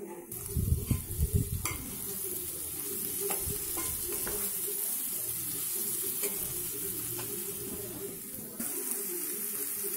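Potato and vegetable pieces frying with a steady sizzle in an aluminium pot while a slotted metal spoon stirs and scrapes them. There are knocks and scrapes against the pot in the first few seconds.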